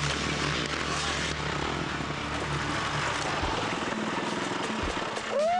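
Dirt bike engines running as riders ride a dirt trail. The engine sound changes about three and a half seconds in, and a short rising-then-falling tone comes near the end.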